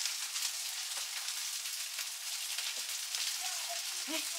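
Food sizzling in hot oil: a steady crackling hiss of frying.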